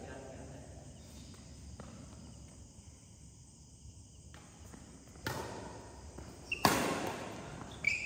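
Badminton rally in a large hall: after a quiet stretch, two sharp racket strikes on the shuttlecock about a second and a half apart, the second louder, each ringing on in the hall's echo. Short high shoe squeaks on the court floor come near the end.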